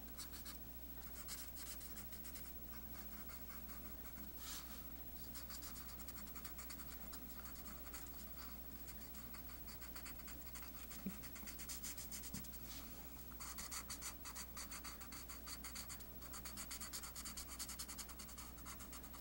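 Fine tip of a Promarker alcohol marker scratching across paper in rapid short strokes while shading. The sound is faint and gets busier in the last third.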